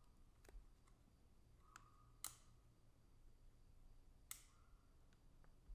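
Near silence broken by a few faint, sharp clicks, the two clearest about two and four seconds in.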